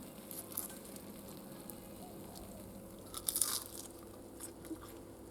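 Crisp fried, battered fish (spangled perch) crunching as it is broken open by hand, a short burst of crackling about three seconds in, with lighter crackles around it.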